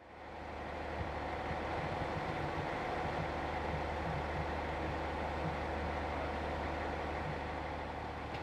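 An engine idling steadily, a low even hum under a steady haze of mechanical noise, fading in at the start.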